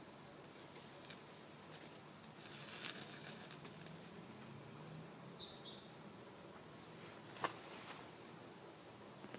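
Small red gum wood fire crackling quietly under chicken sizzling on a grill plate, with a louder burst of hissing about two and a half seconds in and one sharp pop near the end.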